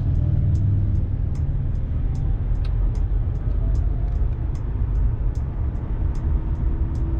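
Heavy lorry's diesel engine and road noise heard inside the cab in slow traffic: a steady low rumble, with faint light ticks scattered through it.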